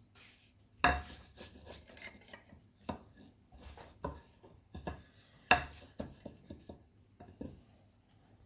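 Knocks, taps and rubbing from kitchen handling of cookware and utensils. Two sharp knocks, about a second in and about five and a half seconds in, stand out among the lighter clicks.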